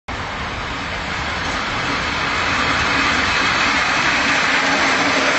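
Small LBSC 'Doris' live-steam locomotive running: a steady rushing hiss over a low rumble, growing slightly louder.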